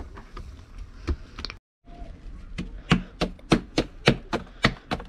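Naan dough being slapped from palm to palm by hand to stretch it: a steady run of sharp pats, about three a second. The run starts after a few scattered knocks and a brief break in the sound.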